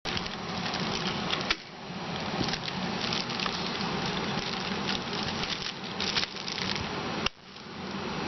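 Adhesive tape being peeled off a laptop screen panel: a crackling patter of small clicks, with two sharp snaps, one about a second and a half in and one near the end.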